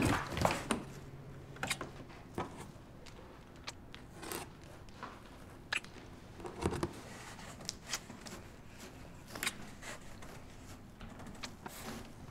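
A cardboard cutout being handled, with faces and hands pressed against it: scattered soft taps, scrapes and rustles at irregular intervals over quiet room tone.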